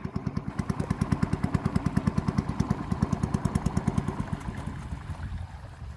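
Small boat engine chugging in quick, even pulses, about ten a second, then easing off and fading near the end as the boat slows.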